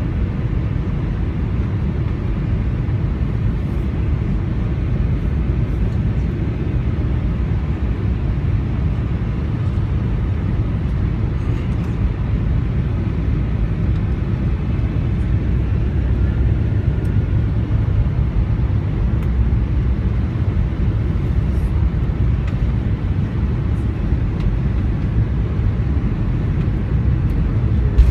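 Steady low rumble of airliner cabin noise on final approach, from the jet engines and the airflow over the fuselage.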